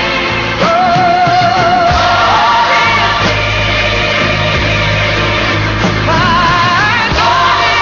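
Gospel song: a lead singer holds long notes with a wide, wavering vibrato over steady backing music, the line climbing higher near the end.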